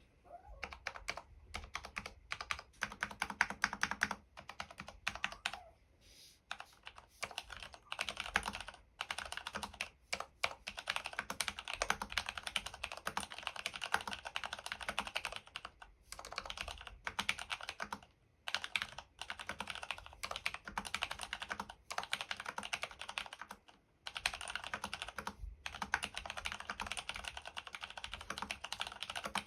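Typing on a DURGOD Fusion mechanical keyboard with Cherry MX Brown switches lubed with Super Lube, stabilizers lubed with Permatex and 5 mm Thinsulate dampening foam in the case. The keystrokes come in fast runs broken by several brief pauses.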